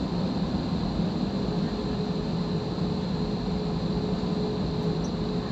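Jet airliner cabin noise while taxiing: the engines give a steady rumble and hiss, with a thin steady hum that comes in about a second in.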